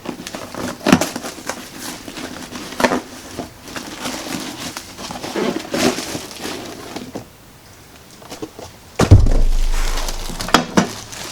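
Workshop handling noise: scattered knocks and clatters of parts and tools on a benchtop planer, then a sudden heavy thump about 9 s in, with a low rumble that fades over about a second and a half.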